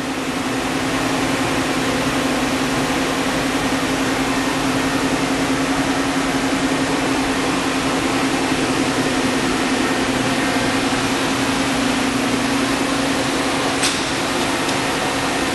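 Steady electrical and mechanical hum of a powered-up Tree VMC 1050 CNC vertical machining center idling, with one strong low tone over a broad whir. A single sharp click sounds near the end.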